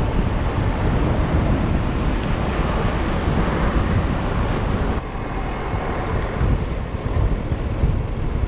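Wind rushing over the microphone of a camera mounted on the outside of a Nissan Navara NP300 ute driving on sand, with the vehicle's running and tyre noise underneath. The sound changes abruptly about five seconds in.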